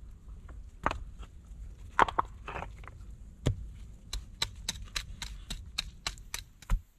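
Hatchet striking flat stones: a few separate sharp knocks, then a quicker run of taps, about four a second, in the second half.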